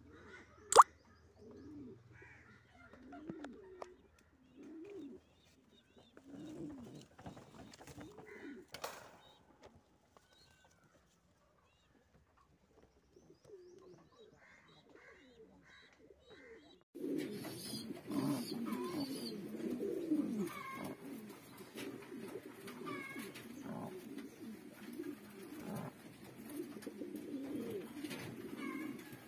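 King pigeons cooing. At first the coos are soft and scattered, broken by one sharp click about a second in that is the loudest sound. From a little past halfway the cooing turns suddenly louder and near-continuous, from several birds at once.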